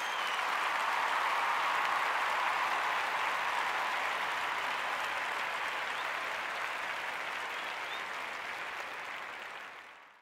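A crowd applauding steadily, fading out near the end, with a few brief high chirps over it.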